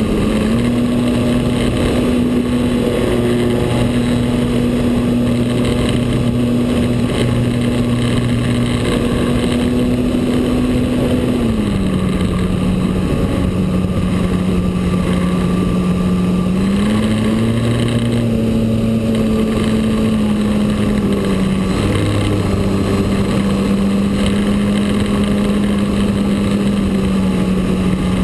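Model airplane's motor heard from on board in flight, running steadily with a hum of air rushing past; its pitch drops about twelve seconds in, climbs again a few seconds later, then settles lower as the throttle is worked.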